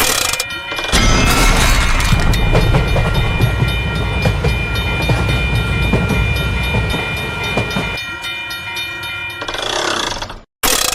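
Animated train sound effect: a train rumbling past under a sustained multi-tone horn, the rumble easing off near the end, followed by a short rush of noise and an abrupt cut.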